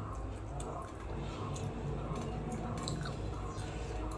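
Close mouth sounds of eating by hand: wet chewing and smacking, with small clicks and squishes as fingers pick through rice and fish on a steel plate, over a steady low hum.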